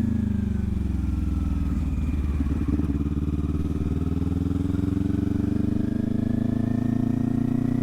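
Kawasaki Ninja 400 parallel-twin engine running while being ridden: the engine note drops over the first second or two, holds low and steady, then climbs gradually through the second half.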